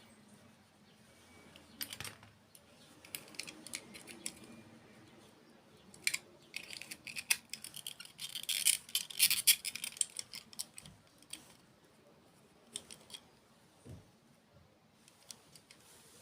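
Close-up eating sounds from a mukbang: crisp clicks and crunches, thickening into a dense crackly run of crunching from about six and a half to ten seconds in, then sparse clicks again.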